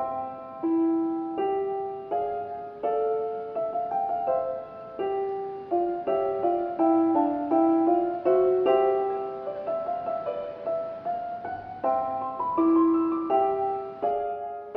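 Background piano music: a slow, gentle melody of struck notes and chords, each fading before the next.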